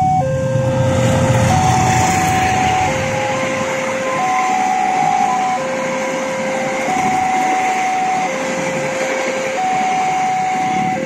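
Railroad crossing warning alarm sounding two tones in turn, low then high, each held about a second and a bit and repeating steadily. Under it a passenger train rolls past, with a low locomotive rumble in the first couple of seconds.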